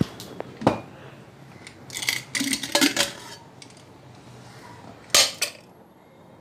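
Metal cookware being handled: a pressure cooker pot knocked and set down on the counter, with a few sharp clicks, a rattling clatter about two to three seconds in, and two sharp knocks a little after five seconds.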